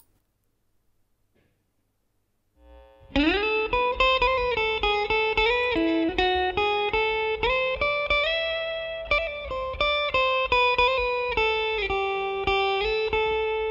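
After about two and a half seconds of near silence, an electric guitar plays a single-note melodic line with slides between notes, ending on a held note. This is the guitar recording played back through a de-hum filter, with its 60 Hz line hum removed.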